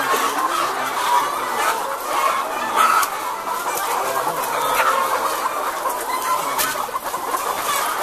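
A house full of caged brown laying hens clucking, many overlapping calls at once in a steady din, with scattered short clicks among them.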